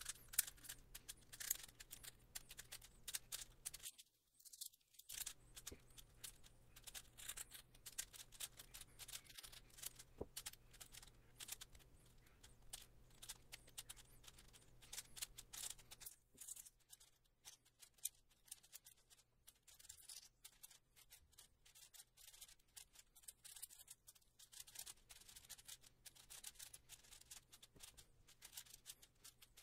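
YJ MGC 6x6 speed cube turned fast and without a break during a solve: a faint, dense run of plastic clicks and clacks, with a short pause about four seconds in. The cube is unlubricated, which shows in its dry turning sound.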